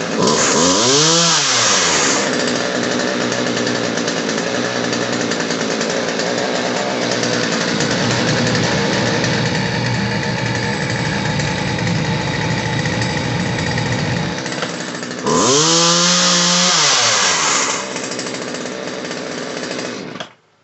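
Poulan 2550 Woodmaster two-stroke chainsaw engine running. It revs up and back down about a second in, then idles steadily while its low-end idle mixture screw is turned slightly counterclockwise to smooth a jerky idle. It revs up and back down again about fifteen seconds in, then cuts off abruptly just before the end.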